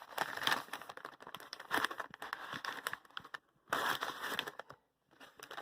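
Packaging crinkling and tearing in several short bursts as a package holding a book is opened by hand.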